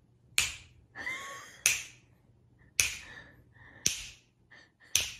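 Five sharp snapping clicks at an even pace, about one a second.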